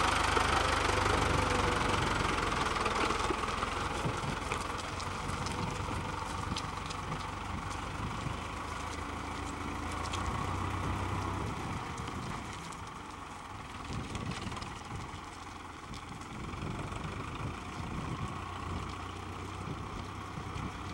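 Ford farm tractor's diesel engine running as the tractor drives away, the sound fading steadily over the first several seconds and then staying faint.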